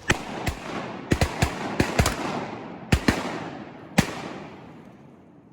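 A volley of shotgun fire from several hunters: about ten shots in quick, overlapping succession over four seconds, the last one alone, each report echoing and rolling away through the flooded timber.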